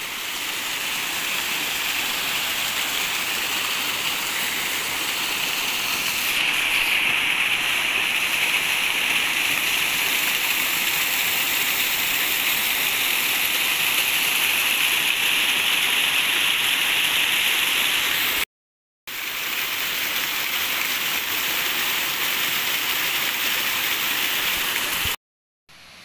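Water rushing over a small rocky waterfall cascade: a steady, even rush that cuts out completely for a moment twice, near two-thirds of the way and near the end.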